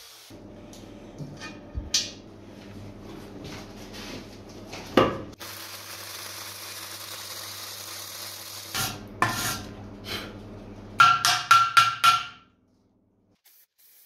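Electric arc welding of steel fittings onto a steel gas-bottle tank: a steady hum with scattered clicks and crackles. Near the end comes a quick run of about six ringing metal taps, then the sound stops suddenly.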